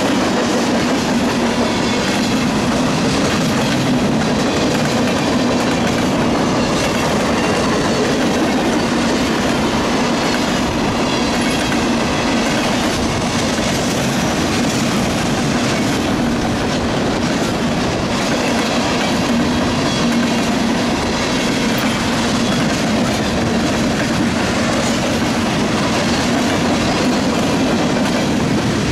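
Freight cars of a mixed freight train rolling past close by: the steady, loud noise of steel wheels running on the rails.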